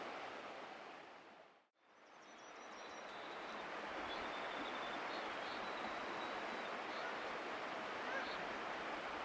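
Steady rushing outdoor ambience that fades out to silence a little under two seconds in and fades back up. A faint high, thin steady tone sits over it once it returns.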